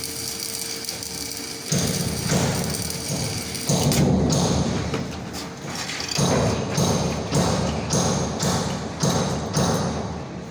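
Stick (SMAW) welding arc crackling and sputtering on steel pipe. It swells and eases in an even rhythm of about one pulse every half second or so, the way it does when the electrode is weaved or whipped along the joint.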